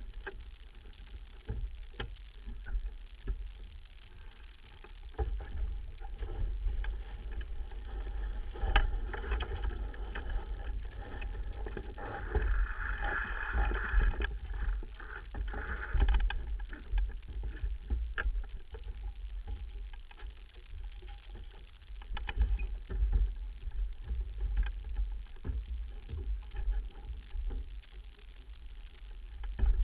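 Kirby 25 sailboat under way: wind buffeting a bow-mounted microphone and water rushing past the hull, with scattered knocks from the deck and rigging. The rush of water and spray swells for a few seconds about halfway through.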